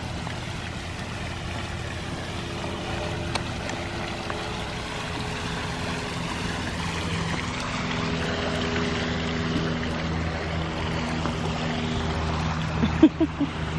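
A steady engine drone under a rushing noise, with several steady low hum tones. A brief louder sound comes near the end.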